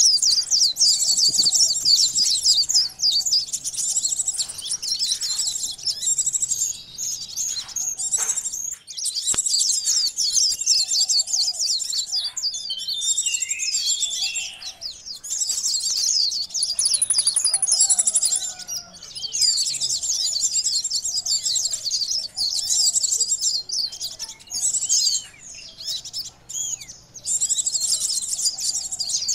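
Bird-lure recording of konin sunbirds calling excitedly: dense, rapid high-pitched twittering in long runs broken by short pauses, with a few lower swooping notes mixed in.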